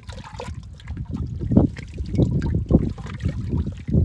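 Wind buffeting the microphone: an uneven low rumble that swells and drops, with a few faint knocks.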